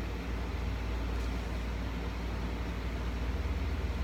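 Steady low hum and faint hiss of room background noise, with no distinct sound.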